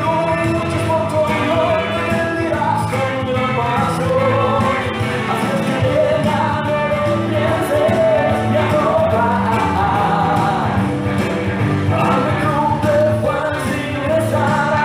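Dance music: a song with a sung vocal over a steady beat, playing throughout.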